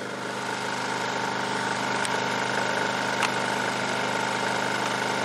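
Generac IQ3500 inverter generator running steadily in eco mode under about a 900-watt load. Its hum grows slightly louder over the first couple of seconds as it takes up the load, then holds level.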